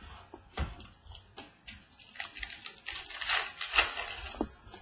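Baseball trading cards being handled and flipped: a string of sharp flicks and snaps, then a denser rustle of cards sliding against one another near the end.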